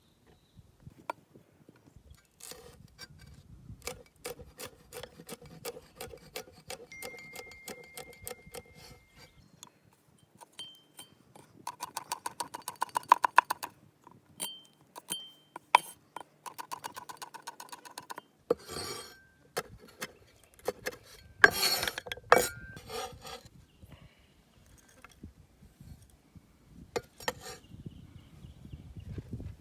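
Food preparation on wood: runs of quick, even scraping and tapping strokes, with a few louder knocks around the middle.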